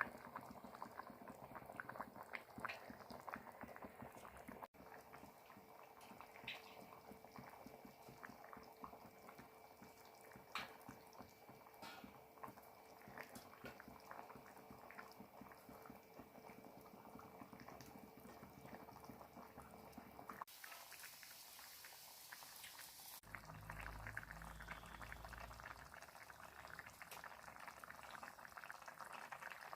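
Fish curry faintly bubbling and crackling as it simmers in the pan, with many small pops. The texture changes abruptly a few times.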